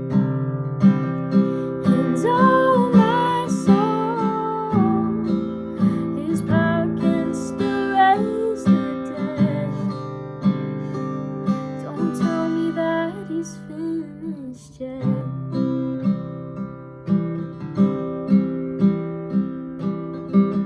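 Instrumental ending of a worship song: a guitar strumming a steady rhythm, with a gliding melody line over it in the first half of the passage.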